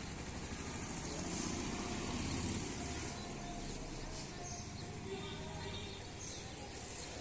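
Outdoor village ambience at dawn: a low rumble that swells about one and a half seconds in and fades again a second later, with a few faint short chirps.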